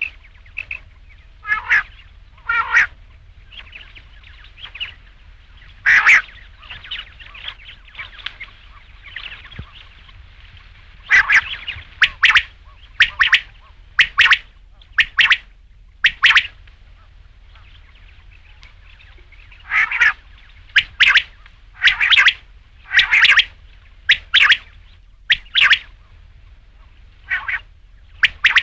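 Rain quail calling: short, sharp, loud calls repeated about once a second in runs of several, with a few seconds' pause between runs.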